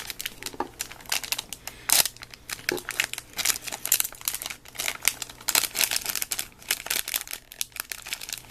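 Crinkly plastic wrapper of a small toy-figure pack being handled and torn open, with a dense run of irregular crackles and rustles; the pack is hard to get into.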